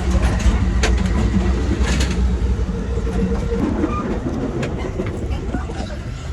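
Passenger train running, heard from inside the carriage: a steady low rumble with a few sharp clicks.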